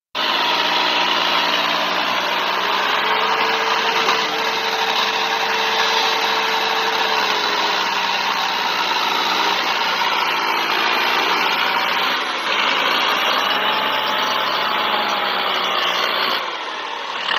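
Diesel tractor engines running hard under heavy load in a tractor tug-of-war, a loud, steady engine sound held throughout.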